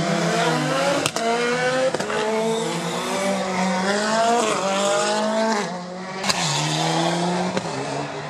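Rally car engine revving hard as the car accelerates through the gears. The pitch climbs and drops back at each shift, with sharp cracks at the shifts, the loudest about six seconds in.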